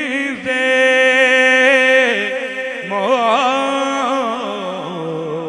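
A man singing a naat, an Urdu devotional song in praise of the Prophet, through a microphone. He holds long, wavering notes with ornamented runs about three seconds in, and his pitch steps lower toward the end.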